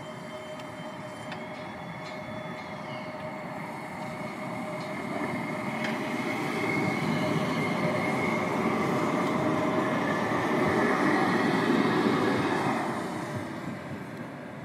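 CAF Urbos 100 electric tram passing close by. The rumble of its wheels on the rails mixes with a steady high whine. It builds to a peak as the tram goes past and falls away near the end.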